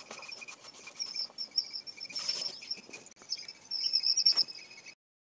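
Hands squeezing and mixing chopped jackfruit seeds, okra and onion in a plastic bowl, with soft wet squelches and rustles, over steady high chirping in the background. The sound cuts off suddenly near the end.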